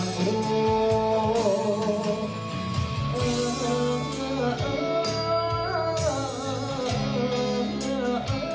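Male singer singing live into a handheld microphone over instrumental accompaniment, holding long notes with a wavering vibrato.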